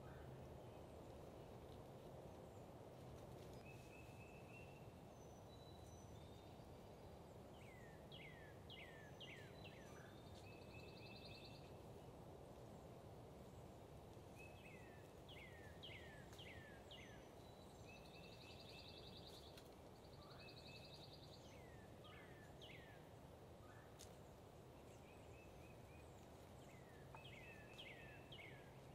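Faint songbirds singing over a quiet, steady low background rumble: repeated groups of four or five quick down-slurred whistles, mixed with short level notes and brief buzzy trills.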